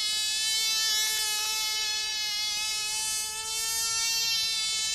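Tiny model-aircraft engine running flat out, a high-pitched, steady buzz whose pitch wavers slightly, as it pulls a person round on a pivoting seat.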